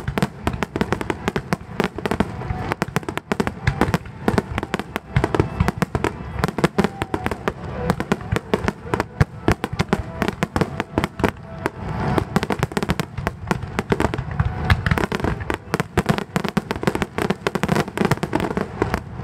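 Finale barrage of aerial fireworks shells bursting in rapid succession, many sharp bangs a second overlapping with crackle, with no pause.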